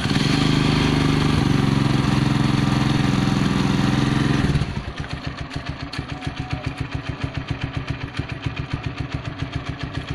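Gamma 200 motorcycle engine exhaling through an Akrapovic carbon fiber muffler with both silencer and dB killer fitted, just after starting. It runs at raised revs for about four and a half seconds, then drops to a steady idle with even exhaust pulses, sounding close to stock and not loud.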